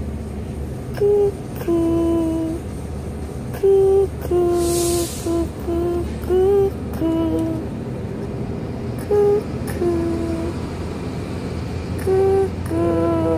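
A person humming a slow, simple tune in short falling phrases of two or three notes with pauses between them, over the steady road rumble inside a moving car. Near the middle comes a brief hiss.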